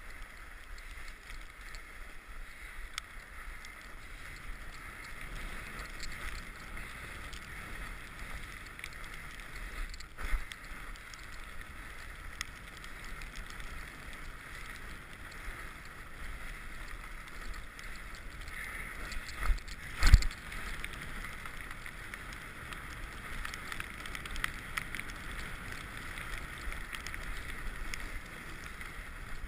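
Mountain bike riding along a trail, heard from a bike- or body-mounted action camera: steady tyre and wind noise, with a knock about ten seconds in and two sharper thumps from bumps about twenty seconds in.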